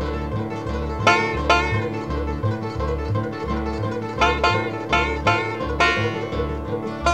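Bluegrass music, a banjo picking over a steady alternating bass line.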